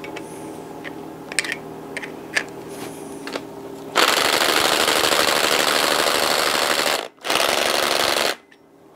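A few light metal clicks, then an impact wrench hammering for about three seconds, a short break, and another second of hammering before it stops. It is working a fastener on the camshaft end of a Honda R18 cylinder head.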